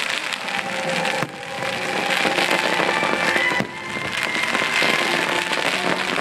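Fireworks crackling and popping densely, over the show's music soundtrack. The loudness drops suddenly twice and builds back up.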